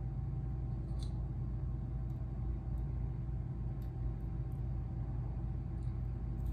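Steady low room hum with a few faint ticks.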